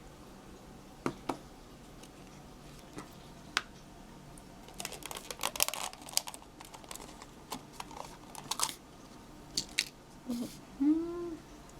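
Takeout food packaging being handled and opened: scattered clicks and crinkling of plastic lids and wrappers, busiest about five to six seconds in. Near the end a short voiced hum rises and falls in pitch.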